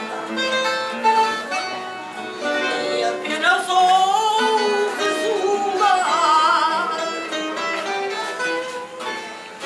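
A woman singing fado live, with a wide vibrato on her held notes, accompanied by a Portuguese guitar and a classical guitar (viola). Her voice comes in over the plucked guitars about two and a half seconds in.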